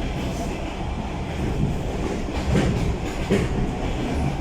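Suburban electric train running along the track: a steady low rumble with the wheels clacking over rail joints several times, about a second apart.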